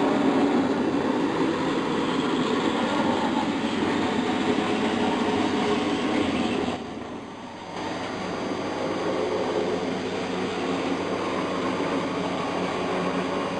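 Model trains running on the layout's track: a Big Boy steam locomotive model and a diesel pulling a track cleaning car, with a steady rumble of wheels and motors. The sound dips for about a second, roughly seven seconds in.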